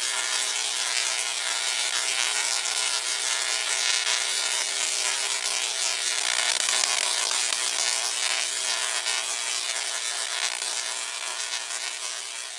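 Tesla coil firing continuously, its sparks arcing into the air with a harsh, steady buzz that fades away near the end.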